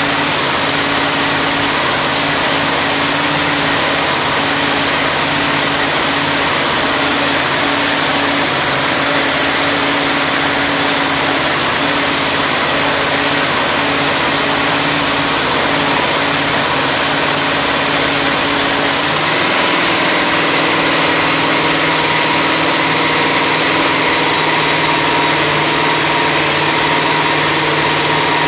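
Freshly rebuilt engine running steadily on a test stand, loud and even, with its note changing about two-thirds of the way through.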